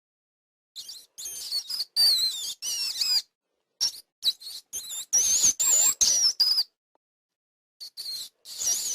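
Mouse squeaking: clusters of short, high-pitched squeaks that waver up and down in pitch, broken by silent gaps, with a longer run in the middle.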